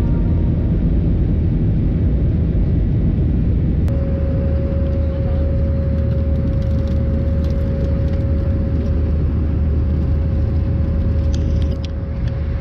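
Steady low rumble of a jet airliner's cabin in flight: engine and airflow noise. About four seconds in the sound shifts and a steady mid-pitched hum runs with it, with a few light clicks near the end.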